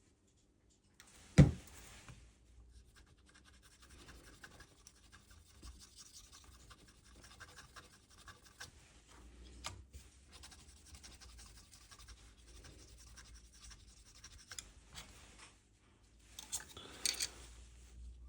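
Light, irregular scratching and ticking of a small hand tool worked against the iPad's charging-port pins and circuit board, with one sharp click about a second and a half in and a louder patch of scratches near the end.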